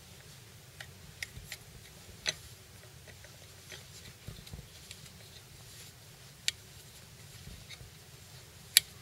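Scattered light clicks and taps of small hard parts being handled, with sharper clicks about two, six and a half, and nearly nine seconds in; the last is the loudest.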